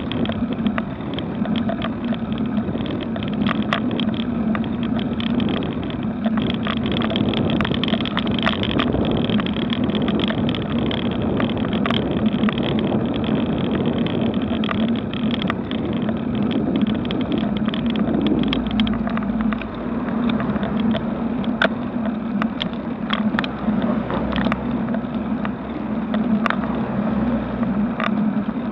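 Steady rush of wind and road noise on a bicycle-mounted action camera climbing slowly up a street, over a steady low hum. Sharp clicks and knocks are scattered throughout.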